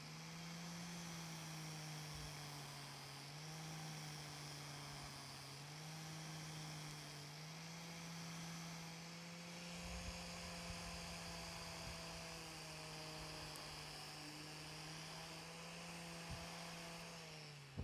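Angle grinder with a sanding disc running against a steel knife blade: a steady motor hum whose pitch drops and recovers several times as the disc is pressed on and eased off the metal, over a faint grinding hiss.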